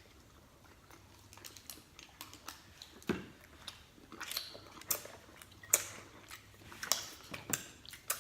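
A person chewing food with wet mouth smacks and sharp clicks coming irregularly, several to the second, and a short lower gulp-like sound about three seconds in.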